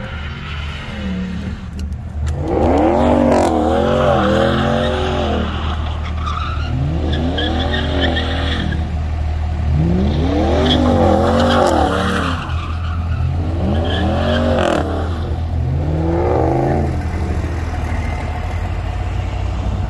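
Tyres squealing in a burnout: five long squeals that each rise and fall in pitch, about every three seconds, over a steady low engine drone.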